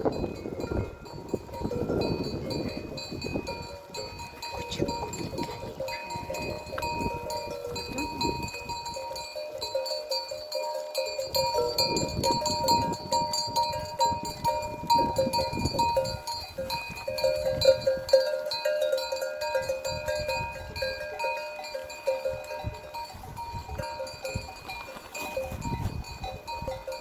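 Bells on a herd of goats clinking and ringing continually as the goats move past, several bell tones overlapping.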